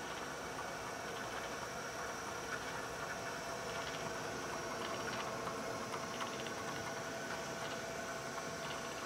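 Bridgeport vertical knee mill running with its spindle motor turning: a steady machine hum with several constant tones.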